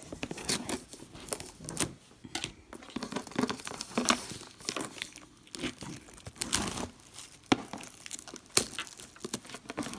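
Packaging of a subscription beauty box being torn open and crinkled by hand: irregular tearing and crackling rustles.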